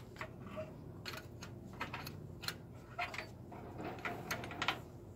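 Open-end wrench ticking and clinking against the brake-line fitting of a 1966 Chevrolet El Camino's front brake as the line is being disconnected: a faint scatter of light, sharp metal clicks, about one or two a second.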